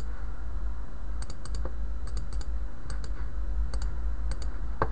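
Computer mouse clicking: a dozen or so short clicks, many in quick pairs and triples like double-clicks, over a steady low hum.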